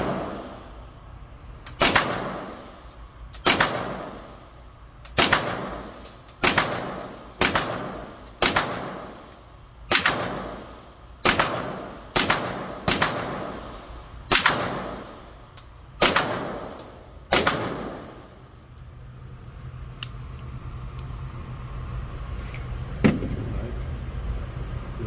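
Suppressed 9 mm pistol-calibre carbine fired in slow semi-automatic shots, about thirteen at roughly one to one-and-a-half second intervals, each shot echoing off the walls of an indoor range. After the shooting stops there is a steady low hum and one click near the end as the gun is handled.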